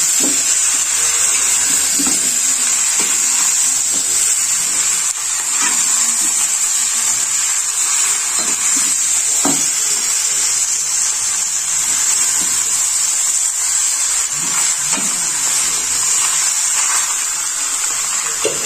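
Marinated mutton pieces sizzling steadily in hot mustard oil in a kadai. A spatula scrapes and turns the meat now and then.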